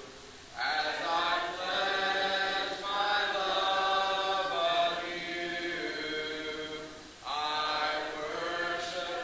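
Congregation singing a hymn a cappella, voices only with no instruments. One sung line starts just after the beginning, and the next comes in after a short breath about seven seconds in.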